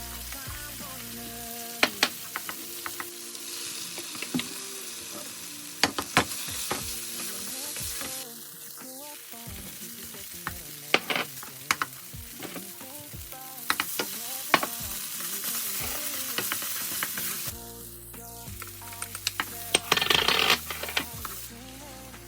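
Tofu and egg fried rice stir-frying in a pan: a steady sizzle that swells twice, with many sharp clicks of a spatula against the pan, over light background music.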